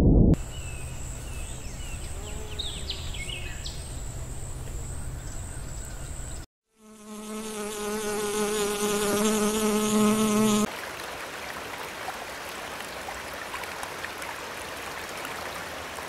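A steady high insect whine with a few short chirps over a low hum, then a bumblebee buzzing in flight for about four seconds, getting louder. At about eleven seconds it cuts to the even rushing of a small rocky stream.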